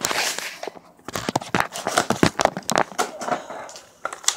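Toy packaging being handled and opened: a run of irregular rustles, crinkles and sharp clicks of cardboard and plastic.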